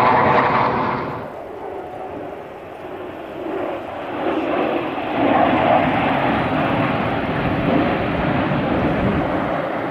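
Jet engines of a four-ship military jet formation flying past overhead: a steady rushing noise that drops after about a second and swells again around five seconds in.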